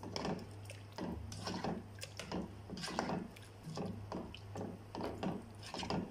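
A slotted spatula stirring thick, creamy butter chicken curry in a nonstick pan, with quick repeated squelching scrapes, about two to three a second. A steady low hum runs underneath.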